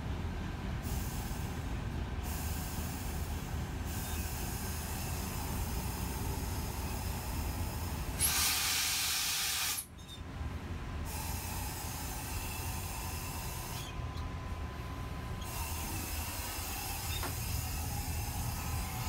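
Philippine National Railways diesel train running with a steady low rumble. About eight seconds in, a loud hiss of released air lasts about a second and a half and then cuts off suddenly.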